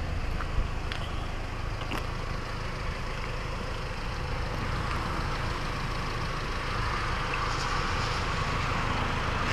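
Steady vehicle and road noise beside a wet road, with a hiss that swells from about five seconds in and eases near the end, like tyres of a passing car on wet tarmac.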